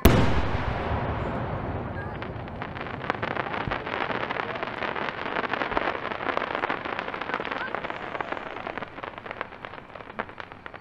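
A large handmade skyrocket's heading bursts with one sharp, loud bang, followed by several seconds of dense crackling from the falling stars that slowly fades.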